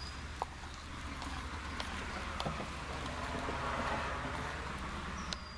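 A car passing on the street: a steady traffic rumble with a tyre hiss that swells to a peak about four seconds in and fades. Over it come small clicks of a metal spoon stirring thick cornstarch goop in a plastic bowl.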